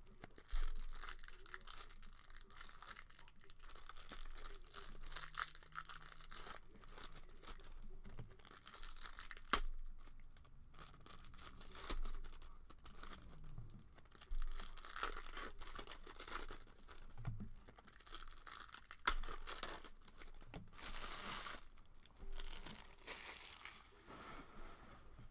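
Plastic wrappers of trading-card packs being torn open and crinkled by hand, in irregular rustling bursts with a sharp click about ten seconds in and the loudest rustling near the end.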